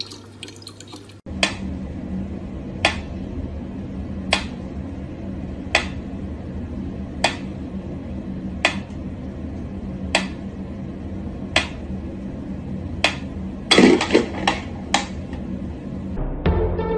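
Mechanical pendulum metronome ticking slowly and evenly, one sharp tick about every second and a half, with a quick run of louder knocks near the end. Music comes in just before the end.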